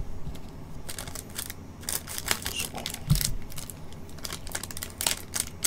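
Shiny Topps Chrome trading-card pack wrappers crinkling and clicking as the packs are picked up and shuffled by gloved hands, with a soft knock about three seconds in.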